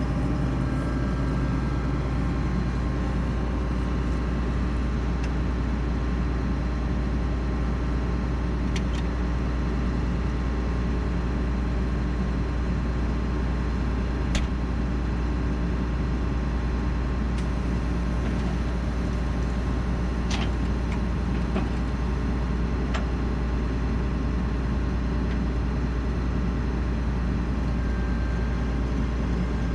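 Combine harvester engine running at a steady speed, with a few faint clicks over the top.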